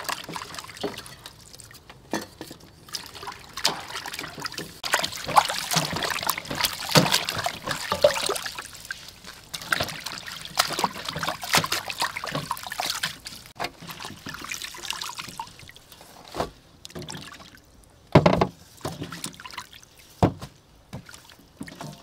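Water splashing and trickling in a stainless steel bowl as leafy greens are swished and washed by hand. It is busiest for most of the stretch, then dies down to a few sharp knocks near the end.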